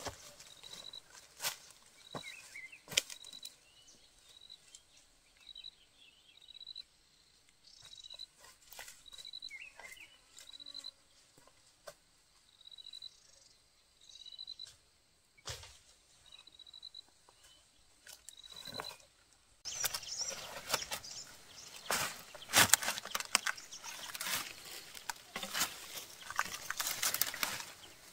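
Footsteps and rustling in dry leaves and undergrowth, with a short high chirp call repeating about once a second through the first two-thirds. From about two-thirds in, the crackling and rustling of leaves and stems grows louder and denser.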